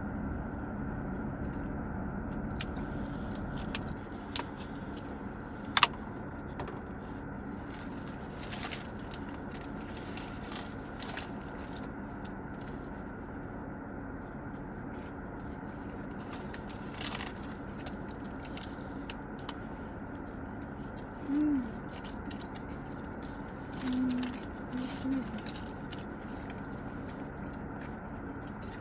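Steady hum inside a parked car, with people eating burgers: chewing, scattered sharp clicks and wrapper rustles, the loudest click about six seconds in. Short hummed 'mm' sounds of enjoyment come about two-thirds of the way through, and twice more soon after.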